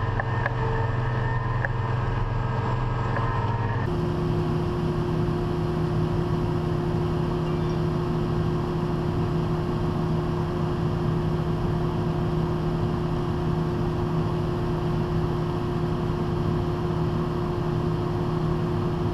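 Harvest machinery running steadily under load, an engine with a constant hum. The pitch and mix of the hum change suddenly about four seconds in.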